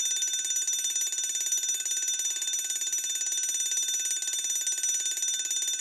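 Smoke alarm sounding continuously: a steady, shrill electronic tone with a fast flutter, set off by smoke from cooking.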